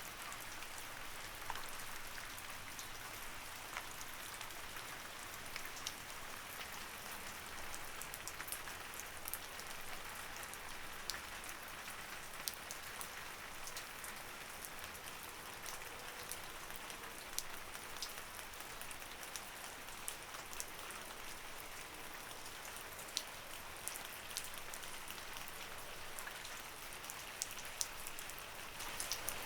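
Light rain falling steadily, an even hiss with scattered sharper drips of individual drops landing on a surface.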